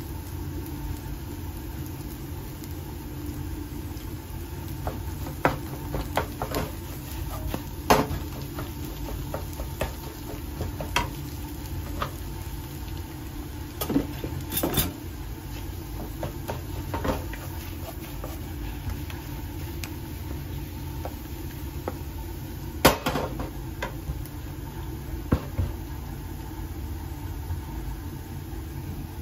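Wooden spatula scraping and knocking against a nonstick frying pan as fried mashed potatoes are turned and pressed, with scattered sharp knocks, the loudest about eight seconds in and again near twenty-three seconds. Under it runs a steady low hum.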